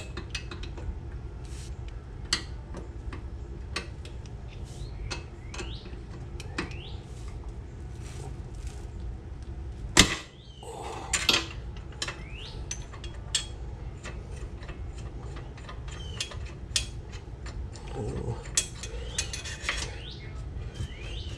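Metal tools and nuts clicking and clinking while the swing arm chain adjuster bolts of a Yamaha Warrior 350 ATV are loosened, with one loud metal knock about ten seconds in. A steady low hum runs underneath.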